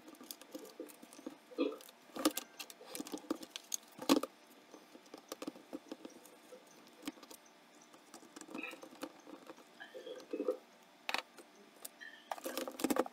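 Irregular light clicks, taps and plastic rattles as hands work the black plastic face plate off a Ford F-series truck instrument cluster, with a few sharper knocks along the way.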